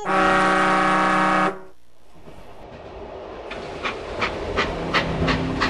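Steam locomotive blowing one whistle blast of about a second and a half. After a quieter hissing stretch, its exhaust chuffs in an even beat of about two to three a second, growing louder as the train gets under way.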